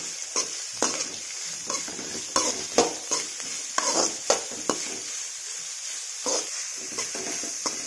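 Chopped onions, green chillies and curry leaves sizzling in hot oil in a pan while a spatula stirs them, scraping and knocking against the pan in quick strokes, busiest in the first half and sparser near the end.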